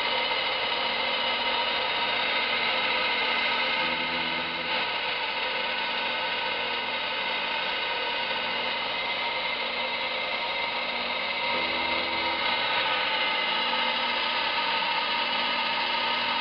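Emco Compact 5 CNC lathe running with its spindle turning: a steady machine whine made of several fixed tones. A brief lower hum joins it about 4 seconds in and again near 12 seconds.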